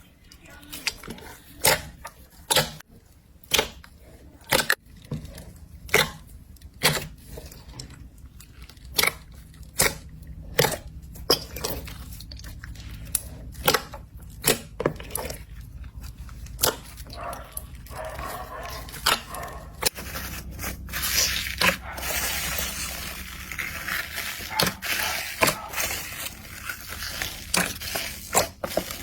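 Slime being squished and stretched by hand, giving sharp wet pops and clicks of trapped air, roughly one a second. About two-thirds of the way through, a denser crackling joins the pops.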